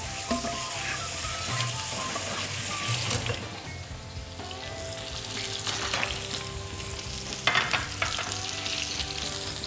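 Thick fish fillets sizzling steadily in hot oil in a stainless steel frying pan, seared in a very hot pan to build a crisp crust. A few short clanks of pans being handled come through it.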